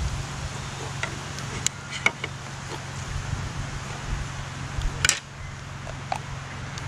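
Camp cooking gear and a knife being handled, making a few sharp clicks about two seconds in and a short scraping clatter about five seconds in, over a steady low background hum.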